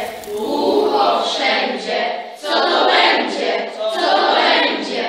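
A chorus of girls' voices chanting lines together in unison, in two long phrases with a short break about two and a half seconds in.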